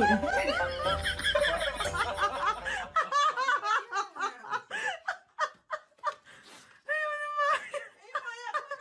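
A person laughing in a long string of short giggles. Music runs underneath and stops about three seconds in.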